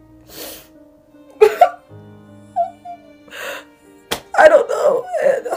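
A young person sobbing and whimpering in short wordless cries with a gasping breath between them, over soft background music.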